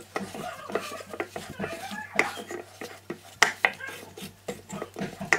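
Hands kneading and squeezing roti dough in a glass bowl: irregular squishes with sharp clicks and taps against the glass.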